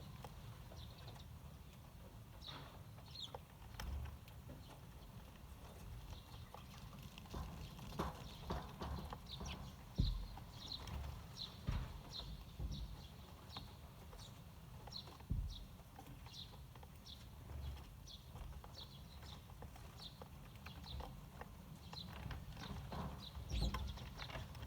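Eurasian tree sparrows chirping, short high chirps repeated at about two a second through the latter half, with a few sharp knocks and a low rumble beneath.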